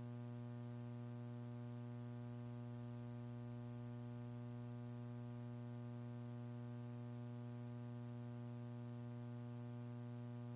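Steady electrical mains hum on the broadcast audio line: a low buzz with a ladder of even overtones that does not change. The rocket itself is not heard.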